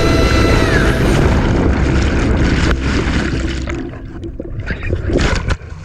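Seawater rushing and churning over the camera's microphone in the surf, heavy and loud for a few seconds, then easing into scattered splashes and drips. A few seconds of edited-in music tones fade out with a falling pitch at the very start.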